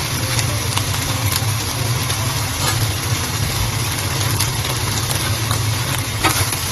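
A steady low mechanical hum under a faint hiss of eel pieces frying in a wok, with a few light clicks.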